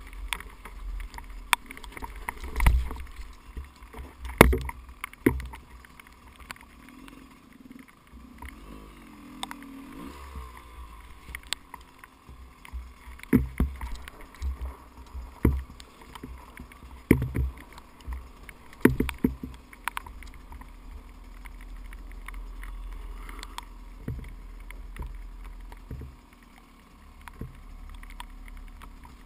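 Two-stroke dirt bike jolting down a rough, rocky trail: irregular knocks and thumps from the bike and its camera mount hitting rocks, the loudest about four seconds in, over a steady low rumble.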